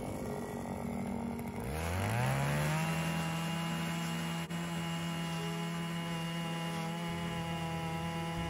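Gas-powered ice auger revving up about two seconds in, then running steadily at high speed as the bit bores through lake ice.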